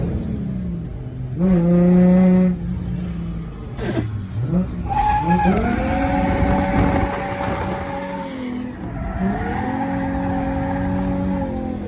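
Holden VY Commodore Calais drifting: the engine is revved hard and held at high revs while the tyres squeal. The revs drop and climb again about four seconds in, and once more near the end.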